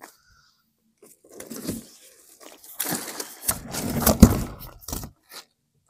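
Cardboard being handled and footsteps on gravel: a run of scrapes, crinkles and crunches that starts after a quiet first second and is loudest about four seconds in.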